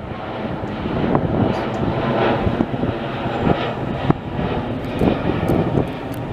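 Twin-engine Airbus A330 jet airliner passing on its landing approach, its engines making a steady rushing noise.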